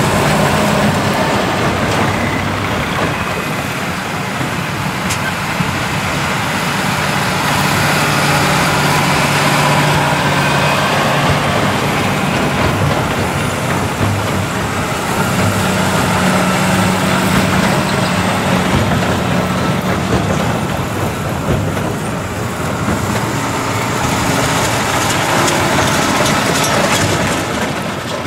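Tractor engines running steadily under load, with the working noise of Krone BigPack 1290 HDP big square balers baling straw.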